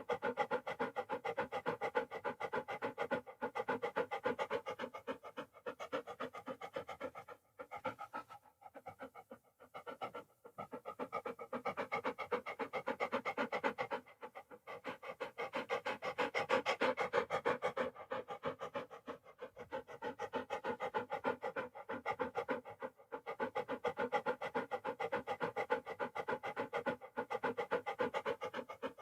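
A dog panting, quick rhythmic breaths in and out, stopping briefly a few times, the longest pause about eight to ten seconds in.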